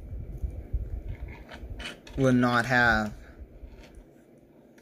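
Low rubbing and small clicks of a die-cast toy car being handled on a table, followed about two seconds in by a brief, loud vocal sound from a man's voice.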